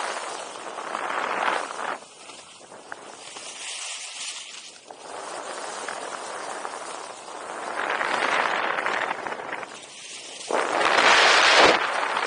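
Skis scraping and carving across packed piste snow through a series of turns, the scrape swelling with each turn and loudest near the end.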